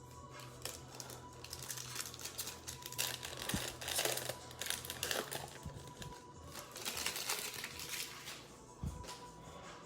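Crinkling and rustling of a foil trading-card pack wrapper being torn open and handled, busiest in the middle seconds.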